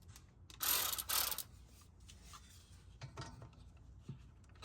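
Metal hand tools clinking and rattling as they are handled: two short rattles about half a second and a second in, then a few faint clicks.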